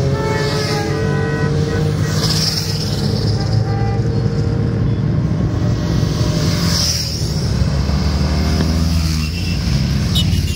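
A column of motorcycles riding past one after another at road speed, their engines running in a continuous rumble. The pitch drops as each bike goes by.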